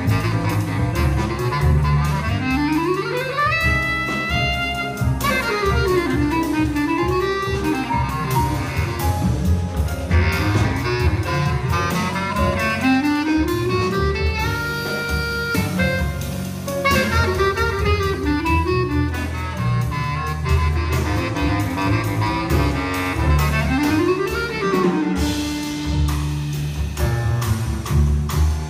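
Jazz ensemble playing live: a bass clarinet solo line with fast rising runs and slides over double bass and drums.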